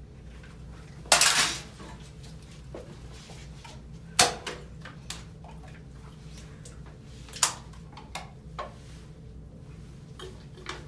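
Sharp metallic clinks and clacks of an aluminium drink can being handled: a loud one about a second in, others about three seconds apart, and a few lighter taps between them, over a low steady hum.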